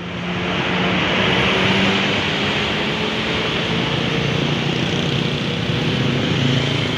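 A large bus passing at close range, its diesel engine running under a steady rush of tyre and road noise that swells in the first second and holds.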